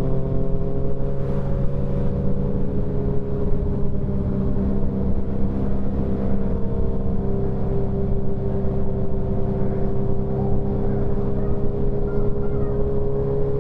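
Motorcycle engine running at a steady cruising speed, its drone holding nearly one pitch, with wind rumble on the microphone underneath.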